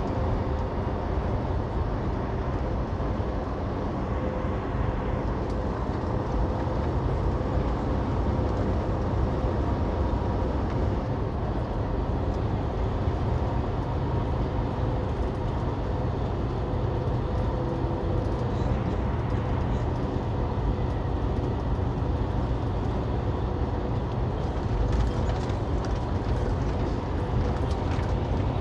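Steady engine and road rumble of a moving vehicle heard from inside the cabin, deep and even, with a faint steady hum running through it.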